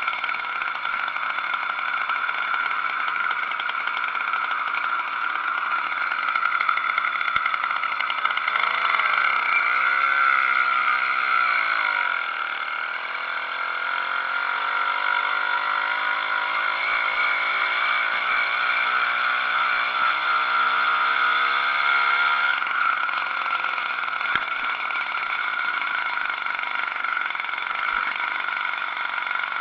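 80cc two-stroke motorized-bicycle engine running steadily under way, with a raspy high buzz throughout. In the middle, a deeper engine note rises and falls for about a dozen seconds, then cuts off.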